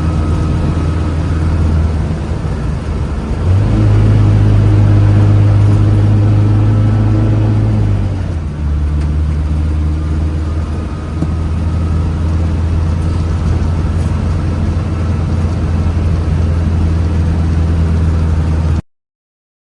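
Engine of a 1970s car running while being driven. About three and a half seconds in, the engine note steps up louder as it accelerates. It eases back about eight and a half seconds in, runs steadily, and cuts off suddenly near the end.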